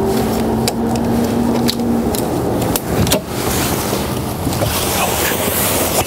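A few sharp clicks and some rustling from the cab-over bunk's aluminium guard rods and netting being handled, over a steady low hum.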